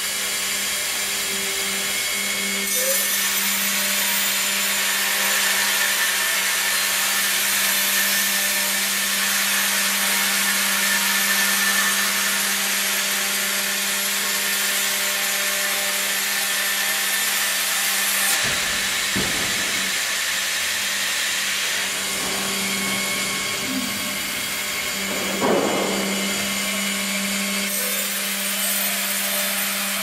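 FIMAKSAN Fİ.120/HDG vertical band saw cutting through a squared log fed by the carriage, over the steady hum of the saw's drive. The cutting noise grows about three seconds in and eases a little after eighteen seconds, with a brief knock near twenty-five seconds.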